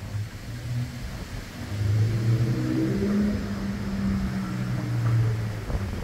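Bombardier Flexity 2 tram pulling away from a stop, its traction drive giving a steady low hum with a short rising whine about two seconds in as it accelerates.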